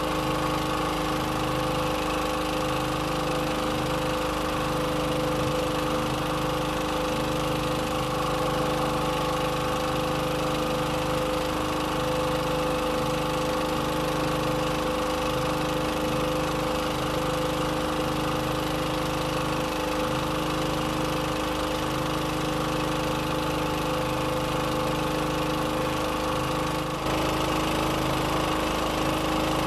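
Boat engine running steadily at constant speed, with a brief dip in level near the end.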